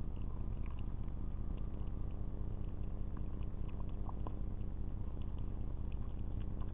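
Marten feeding in a bird feeder: many small irregular clicks and crunches from chewing nuts and rummaging through seed, over a steady low hum.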